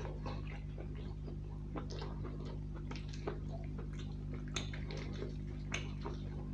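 Wet, sticky eating sounds of a man eating curried whole chicken with his hand: fingers squishing through the gravy and tearing the meat, with smacking and chewing as short clicks scattered throughout, over a steady low hum.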